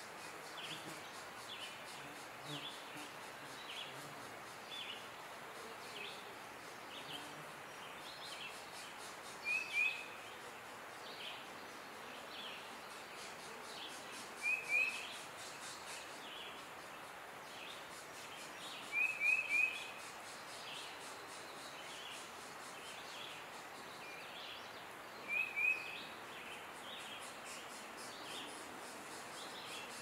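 Birds calling over a steady background hiss. A faint short high call repeats about every second, and four times a louder quick pair or triple of short high notes stands out.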